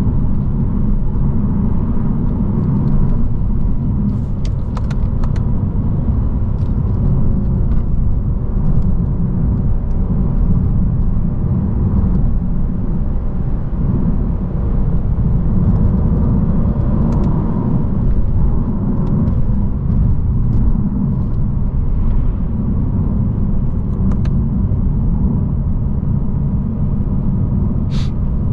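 Cabin sound of a 2022 Lexus RC350 F Sport's 3.5-litre V6 driving at moderate speed on a winding road. A steady low road and tyre rumble sits under a faint engine note that rises and falls gently. A few light clicks come about four seconds in and near the end.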